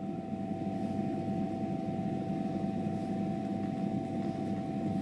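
Steady mechanical hum with a constant whine over a low rumble, unchanging throughout.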